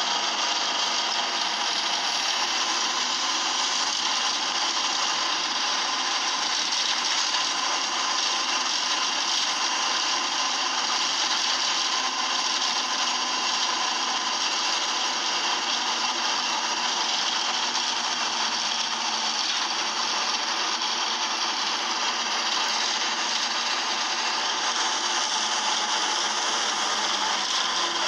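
Moving single-deck bus heard from inside the passenger saloon: a steady, rasping mechanical running noise from the engine and drivetrain, with a faint held whine, at an even level throughout.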